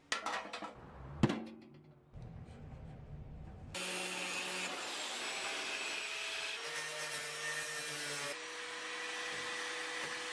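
Metal clatter and a sharp knock as the parts of a rusty steel tool box are handled. After that comes a steady, loud rushing noise with faint humming tones, which changes abruptly a few times.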